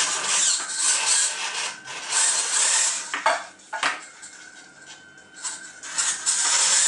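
Hobby servo motors in a 3D-printed robot forearm whirring in short grinding bursts as they pull the fishing-line tendons to open and close the fingers. A thin steady tone holds in a pause between moves.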